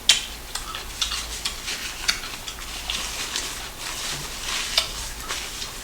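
Close-miked wet chewing and lip-smacking of sauce-coated chicken: a run of irregular sticky clicks and crackles.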